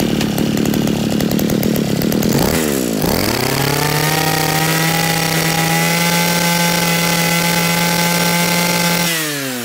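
Small two-stroke brush-cutter engine running on the bench. It revs up quickly about three seconds in, holds a steady high-pitched speed, then winds down near the end.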